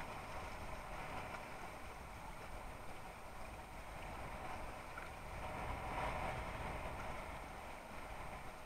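Water rushing and splashing along the hull of a Mistral Superlight windsurf board as it sails, a steady hiss that swells briefly about six seconds in.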